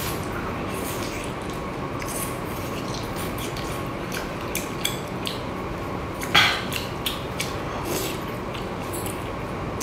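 Eating a scallop on the half shell by hand: scattered small clicks and wet mouth sounds as the meat is pried from the shell and bitten, with one louder, sharper burst about six seconds in, over a steady background hiss.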